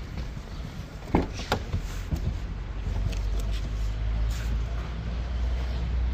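Rear side door of a 2008 Volkswagen Touran being unlatched and swung open: a click and a clunk of the handle and latch a little after a second in, then a few smaller clicks. A steady low rumble runs underneath.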